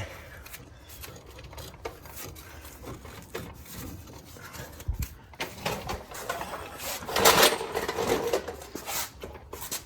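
Hand work on a car's front suspension: scattered clicks and knocks of metal parts and tools, a low thump about five seconds in, and a louder stretch of scraping and rattling about seven seconds in.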